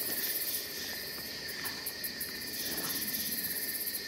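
Night insects, crickets among them, trilling steadily at several pitches at once. A very high, fast-pulsing trill breaks off about half a second in and comes back past the middle.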